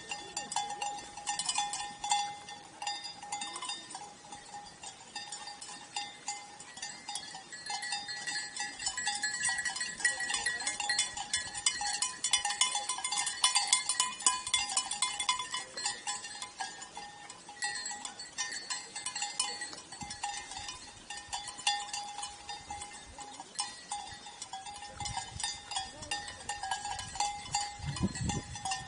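Bells on grazing sheep clinking and ringing steadily and unevenly as the flock moves and feeds.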